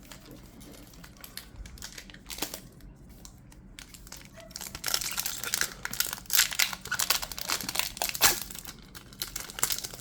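Foil Pokémon booster pack wrapper crinkling and tearing as it is opened, sparse at first and then busy through the second half.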